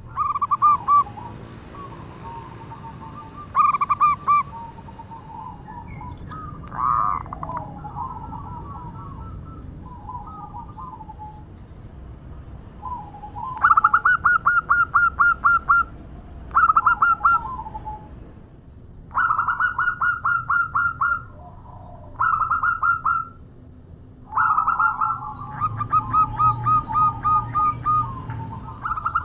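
Zebra dove calling: several bursts of rapid, evenly pulsed cooing notes, about six a second, with softer wavering coos between them. It is presented as a female calling to a male.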